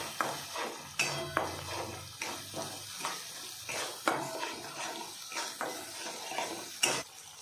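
A metal spatula stirring thick masala paste in a metal kadhai, scraping and clinking against the pan in repeated strokes about twice a second, with one sharper clank near the end.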